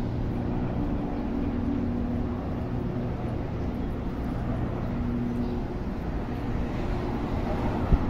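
Street traffic: a steady hum of vehicle engines and road noise, with faint engine drones coming and going.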